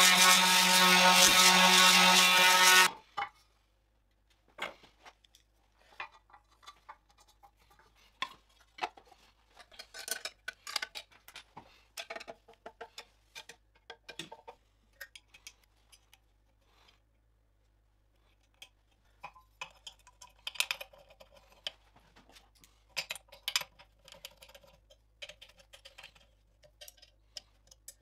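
A handheld power tool with a spinning wheel runs loudly and steadily against a metal motor housing, then stops abruptly about three seconds in. After that come scattered small metal clicks and clinks of a screwdriver and hex key fastening screws on the motor and its bracket.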